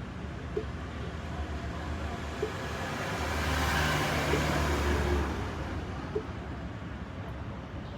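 A vehicle passing by, its noise swelling to a peak about halfway through and then fading, with faint short ticks about every two seconds.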